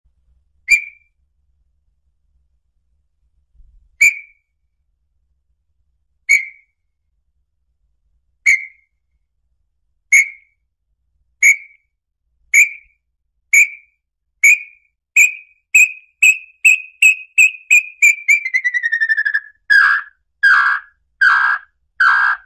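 Small-billed tinamou song: clear whistled notes, several seconds apart at first and coming steadily faster until they run together, then a drawn-out falling note about 18 seconds in, followed by four lower whistled notes near the end.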